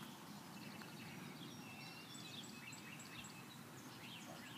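Faint birds chirping and whistling, with short high calls scattered throughout, over a steady low background hum.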